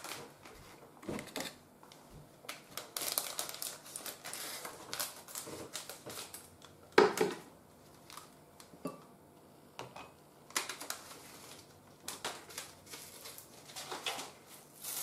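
Light, scattered clicks, taps and rustles of tableware being handled while rice is dished up with a plastic rice paddle, with one sharper knock about seven seconds in.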